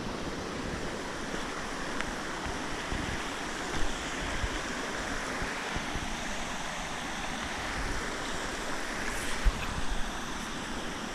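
Steady rushing of water, with wind buffeting the microphone in low, uneven rumbles.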